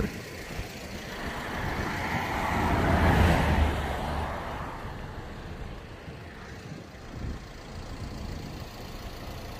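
A road vehicle passing by: its rumble and tyre noise swell to a peak about three seconds in and then fade away, leaving a low steady background hum.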